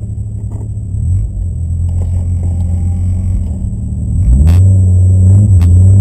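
Car engine running while the car is held stationary, heard from inside the cabin. About four seconds in, the revs rise and it gets louder.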